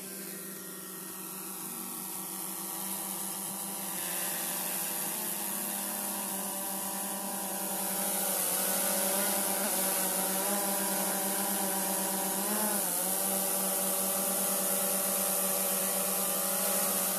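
DJI Mavic 2 Zoom quadcopter's motors and propellers buzzing as it lifts off and hovers close by. The buzz grows louder about four and eight seconds in, and its pitch wavers briefly a couple of times as the drone adjusts its position.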